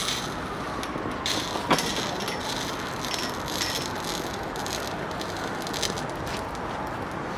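Plastic toy soldier burning, with irregular crackles and pops from the flames and melting drips over a steady hiss, and one sharp crack about one and a half seconds in.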